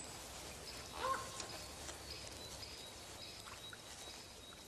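Faint forest ambience: short, thin, high bird chirps over a low steady hiss, with one brief pitched call about a second in.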